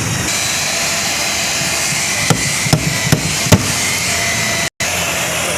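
Hammer striking metal to knock out a dent: four sharp blows in quick succession a little past two seconds in, over a steady hiss.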